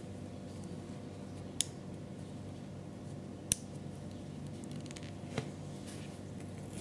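Three small, sharp metallic clicks about two seconds apart, the second the loudest, from the parts of a 1:3.5-scale miniature Mauser 98k rifle being handled.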